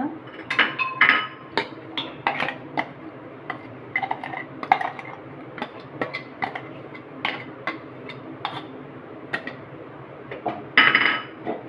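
Steel mixer-grinder jar and utensil clinking, knocking and scraping against a steel bowl as thick green paste is emptied out, with a run of irregular metallic taps. Louder ringing clanks come about a second in and again near the end.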